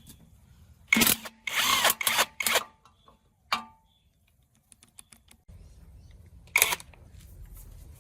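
Tool work on an old diesel engine: a cluster of short, loud noisy bursts in the first few seconds and another a little after six seconds, over a faint low hum.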